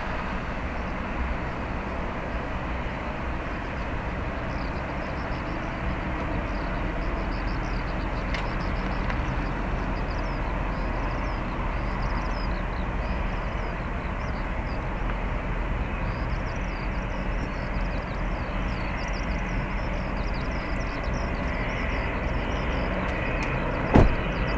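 Boeing 787-10 jet engines climbing out after takeoff: a steady, deep rumbling roar heard from the ground. Faint high chirping sits above it, and there is a single sharp click near the end.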